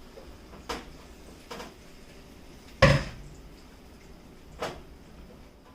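Cookware and utensils clinking on the stove: four separate knocks, the loudest about three seconds in.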